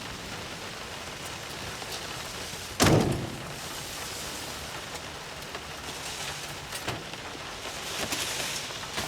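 A single heavy thump about three seconds in, over a steady hiss of background noise, with a few light clicks later.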